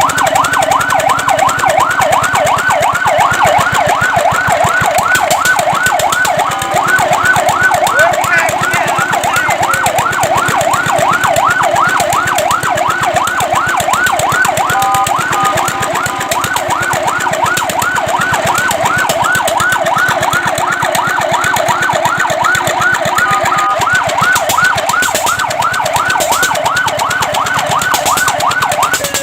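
Fire truck siren sounding in a fast yelp: a rapid rise-and-fall wail repeating about four to five times a second. Three times it breaks briefly into a short pattern of steady tones.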